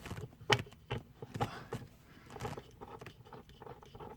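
Irregular clicks and knocks of seatbelt buckle hardware and its mounting bolt being handled and set in place, the sharpest about half a second in, followed by lighter ticks.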